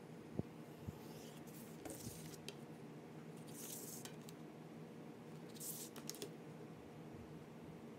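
Handling of a steel ruler and a sheet of paper on a cutting mat. There are a few light clicks in the first second and three brief dry rustles as the ruler and paper are slid and repositioned, over a faint steady hum.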